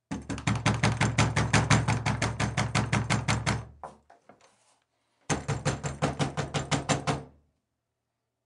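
Rapid pounding on a door, about seven blows a second, in two bursts. The first lasts about three and a half seconds and dies away. After a pause of about a second and a half, a second burst of about two seconds follows and then stops.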